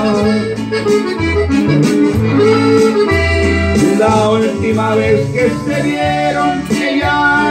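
Norteño-style accordion playing an instrumental interlude between sung verses, with melodic runs over a steady, pulsing bass line.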